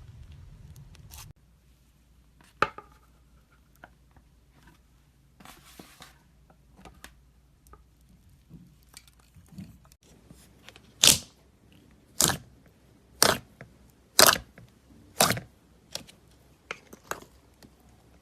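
Slime being played with by hand: faint scattered clicks at first, then from about eleven seconds in a run of short, sharp, loud crackles about once a second, five in a row, followed by a few softer ones.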